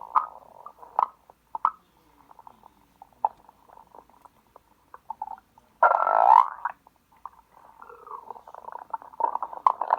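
Stomach growling: a run of irregular short gurgles and bubbly clicks, with a louder burst about six seconds in and thicker, more continuous gurgling near the end.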